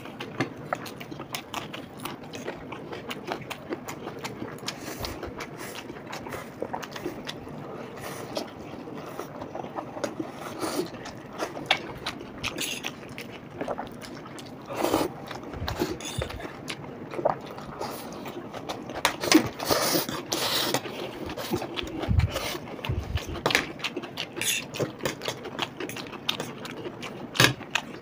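Eating sounds at a table: forks clicking and scraping on plates while chow mein noodles are picked up and chewed, in a long run of irregular small clicks and taps.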